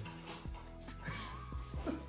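Quiet background music.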